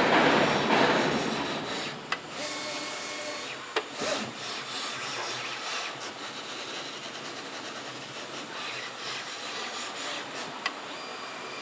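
Combined pattern plotter and cutting machine running, a steady mechanical rubbing and scraping that is louder for the first two seconds. A few sharp clicks sound along the way.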